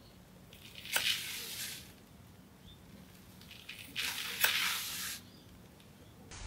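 Hair-cutting scissors shearing through a thick section of long straight fringe hair: two cuts, each a second or so of rasping shearing noise with a sharp click in it.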